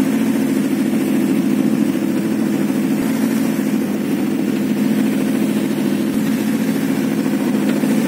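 A tour boat's Mitsubishi engine running at a steady cruise, a constant, even drone.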